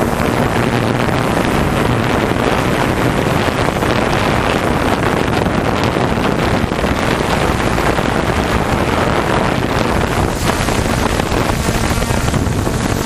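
Open-class (1100–1500 cc) jet ski engines running at race speed, heard through heavy wind buffeting on the microphone. The noise stays loud and steady throughout.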